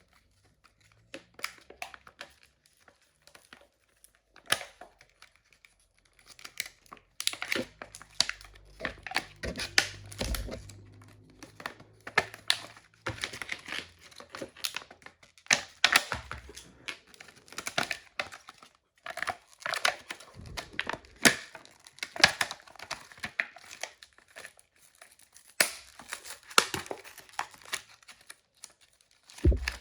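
Retail packaging being torn and pried open by hand: irregular tearing and crinkling with scattered sharp knocks and rustles.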